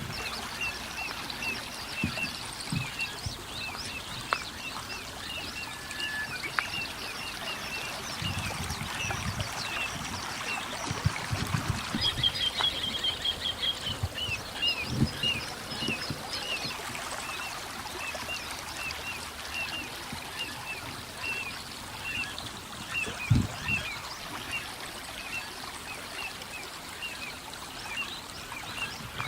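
Little ringed plovers calling: a steady series of short, downslurred whistled notes, about two a second, with a quicker run of higher notes about twelve seconds in. Running water hisses underneath, with a few low thumps.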